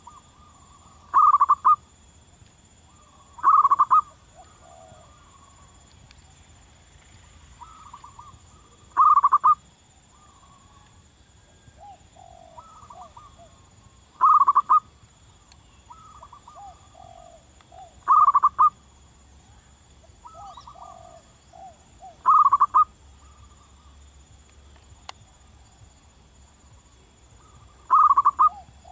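Zebra dove (perkutut) cooing: seven short, loud bursts of rapid notes, a few seconds apart, with fainter and lower cooing notes between them.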